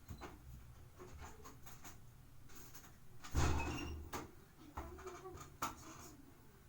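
Handling noises: scattered small clicks and knocks, with one loud, deep thump about halfway through.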